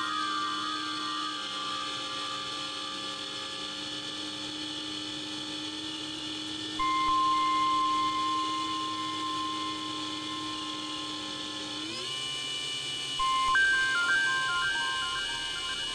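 Background music: an electronic track of long held tones, with a long held note from about seven seconds in, the whole sound sliding up in pitch about twelve seconds in, and a short run of quick stepped notes near the end.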